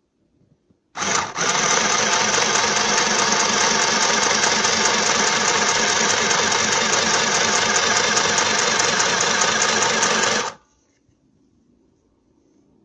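Small plastic sewing machine running and stitching fabric. It starts abruptly about a second in, falters briefly, then runs loud and steady with a fine rapid pulse until it stops abruptly about ten and a half seconds in.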